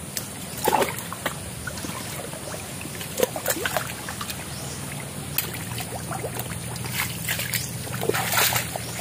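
Muddy ditch water sloshing and splashing around a person's hands and body as a catfish is caught by hand, with scattered sharp splashes and a denser run of them near the end.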